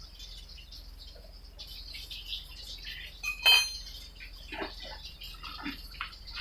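A single sharp metallic clink with a brief ring about three and a half seconds in, amid scattered faint high chirps and scrapes.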